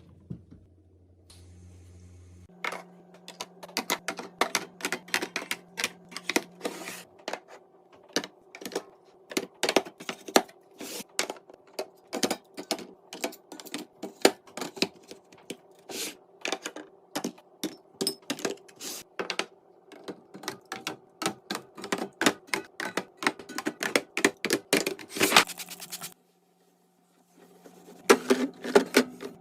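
Drink containers being handled and set into a fridge: rapid, irregular clicks and clinks, one after another, over a faint steady hum. They pause briefly near the end, then start again.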